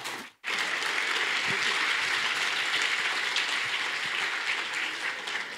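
Audience applauding, starting about half a second in and easing off slightly toward the end.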